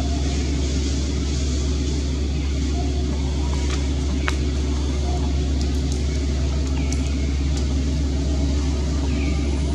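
A steady low rumble that does not change, with a few faint sharp clicks through the middle and a couple of short falling chirps near the end.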